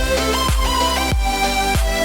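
Electronic background music with a steady beat: a deep kick drum about every 0.6 seconds under sustained synth notes.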